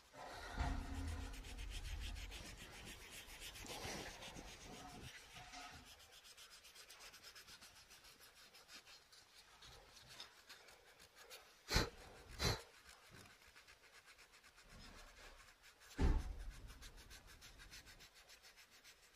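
A small hand tool scraping and rubbing at the surface of a relief plaque of a fish in quick, even strokes. Two sharp knocks come close together about twelve seconds in, and one more about four seconds later.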